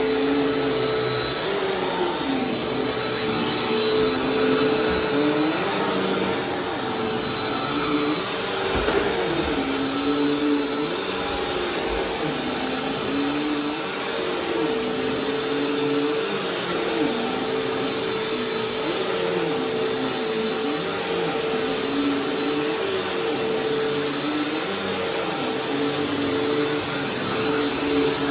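Bissell vacuum cleaner running on carpet with a steady motor hum. Its lower pitch dips and recovers every second or two as it is pushed back and forth.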